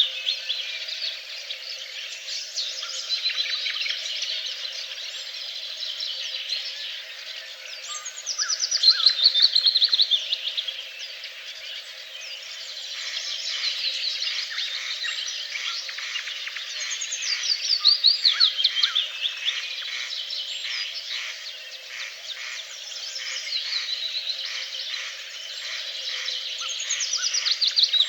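Birds singing: one bird repeats a descending trilled song of two to three seconds, three times about nine seconds apart, over a steady chorus of other birds chirping.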